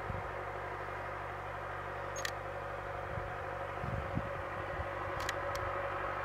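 A steady low hum made of several tones, with a couple of faint clicks about two and five seconds in.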